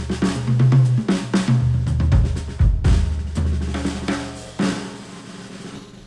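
Instrumental music with a drum kit (snare, kick, hi-hat and cymbals) over a bass line, played back through headphones and picked up by microphones; it grows quieter toward the end.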